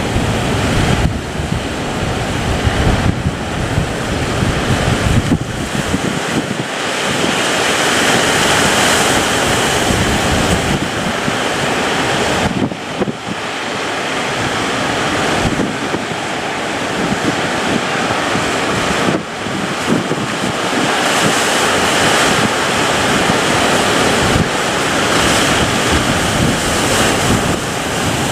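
Loud rushing of sea waves and wind buffeting the microphone as a boat heads out through big waves, the roar surging and dipping.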